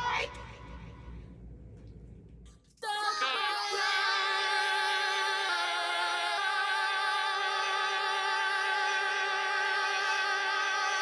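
Music: a quiet pause of about three seconds, then a sustained choral chord of voices with vibrato that enters suddenly and is held, shifting slightly partway through.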